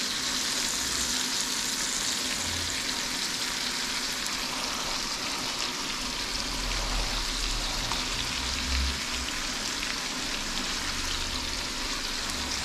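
Pieces of lake trout frying in a pan on a gas stove, a steady sizzle.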